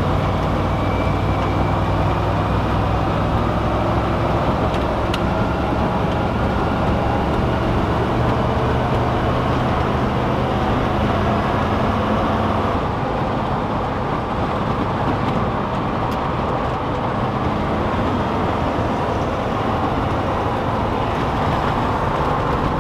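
LS V8 engine of a Humvee with stock exhaust, cruising steadily at highway speed and heard from inside the cab: a constant low engine drone under loud tyre and wind noise.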